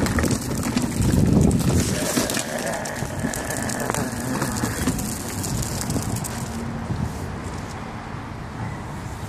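A child's plastic tricycle rolling over a concrete path, its wheels rumbling and clattering, loudest about a second in and easing off towards the end.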